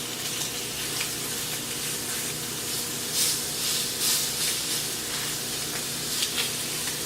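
Sausage frying in a pan: a steady sizzling hiss with scattered crackling pops, a few louder ones about three and four seconds in.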